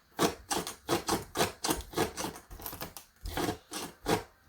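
A quick run of clicks and knocks, about four a second with a short pause near three seconds in, from fingers working the parts of a homemade puzzle box as a number combination is tried on it.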